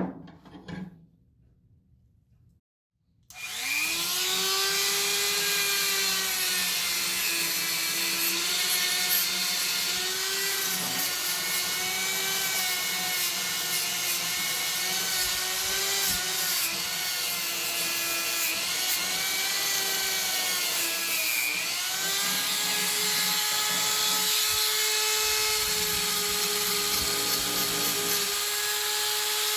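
A small high-speed rotary power tool starts about three seconds in, spins up and runs with a steady high whine. Its pitch sags briefly several times as it is pressed against the work, and once, a little past the middle, it drops and picks up again. A short knock sounds at the very start.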